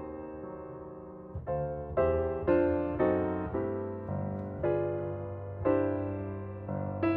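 Background piano music: chords and single notes struck every half second or so, each one ringing and fading.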